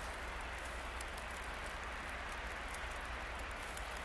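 Steady outdoor wind and sleet noise: an even hiss with a low rumble underneath and faint scattered ticks of falling precipitation.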